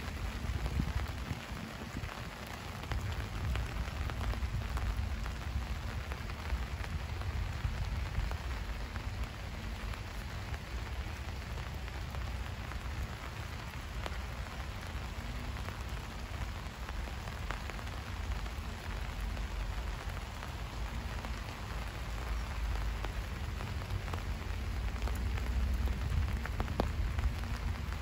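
Steady rain falling on surfaces, with scattered sharp drop ticks over a constant low rumble.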